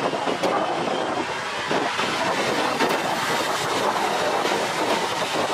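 Jet engines of an Airbus A320-family airliner running at taxi power close by: a steady rush of noise with a faint high whine.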